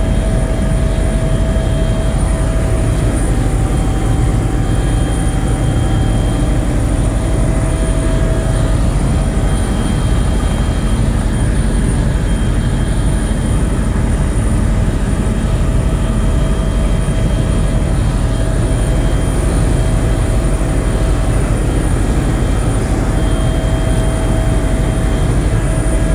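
Small plane's engine and propeller running steadily in cruise, heard from inside the cabin, with the rush of air over the airframe.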